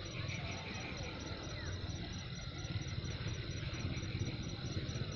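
Low engine rumble with a fast, even pulse, growing louder near the end, over steady insect chirping.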